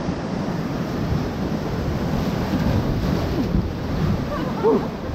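Whitewater of a Colorado River rapid rushing around a raft, a loud steady rush with wind buffeting the microphone.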